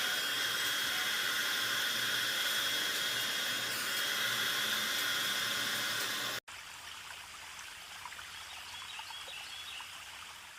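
Hair dryer blowing steadily with a high whine over its hiss, cut off abruptly about six seconds in. A quieter steady hiss with a few faint ticks follows.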